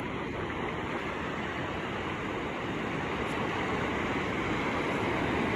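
Steady rushing noise of ocean surf and wind, with no distinct events.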